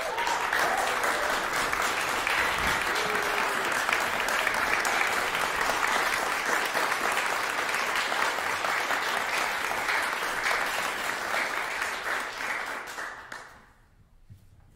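Audience applauding, starting all at once and dying away about a second before the end.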